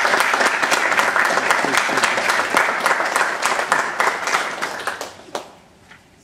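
Audience applauding, a dense patter of many hands clapping that dies away about five seconds in, with one last single clap.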